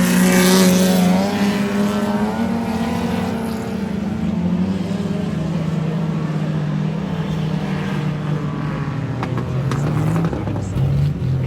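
Speedway race cars running around the oval: one car passes close near the start, loudest then, its engine note falling as it goes by, over the steady drone of the other cars' engines.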